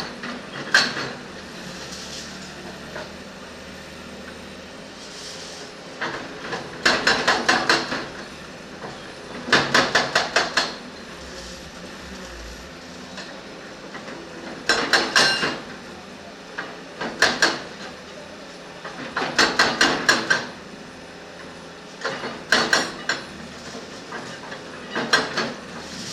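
Bursts of rapid metallic clanks every two to three seconds over a steady low engine sound, from a backhoe loader's bucket and arm working against a steel rod to pull it out of the ground.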